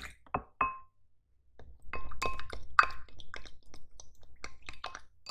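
A plastic spoon tapping twice against a small glass bowl, each tap with a short ring. Then a plastic spatula stirring in a glass bowl, clinking and tapping against the glass many times in quick succession.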